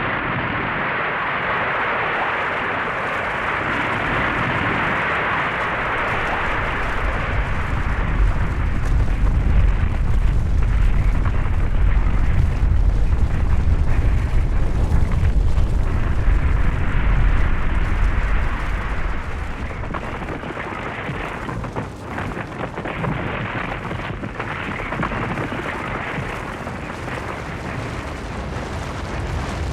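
Snow-and-rock avalanche sound effect: a continuous hissing rush of sliding snow and debris, with a deep rumble that builds, is loudest from about eight to eighteen seconds in, then eases back.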